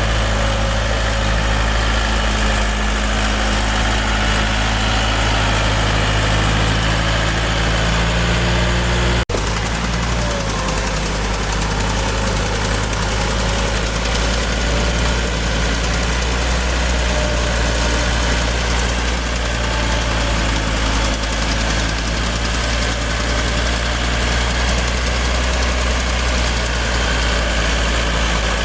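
Heavy vehicle engine idling steadily, with a brief dropout about nine seconds in.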